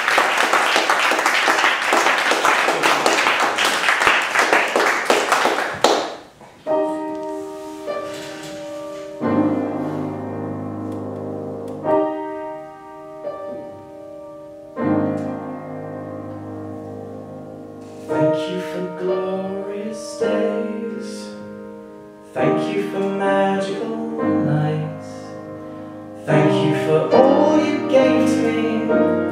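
Audience applauding, which stops about six seconds in. Then a solo piano plays a slow introduction, struck chords that ring and fade, a new chord every two or three seconds.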